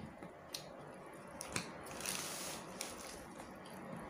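A person eating bakmi egg noodles close to the microphone: a few sharp mouth clicks and smacks, and a short slurp about two seconds in as the noodles go into the mouth.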